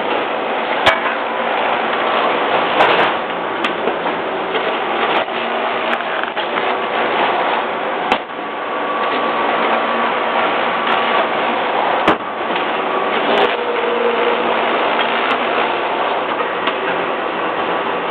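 SunRaise Model 12 tabletop thermographer running: a steady mechanical whir from its blower and wire-belt conveyor, with about half a dozen sharp clicks scattered through.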